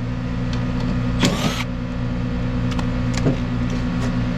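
Trane heat pump outdoor unit running: a steady hum from the compressor and condenser fan. About a second in, a short burst of noise sounds over it, with a few light clicks.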